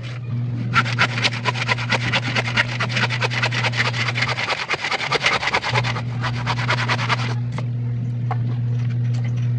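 Hand saw cutting through a wooden plank in quick back-and-forth strokes, from about a second in until about seven seconds in. A steady low hum runs underneath.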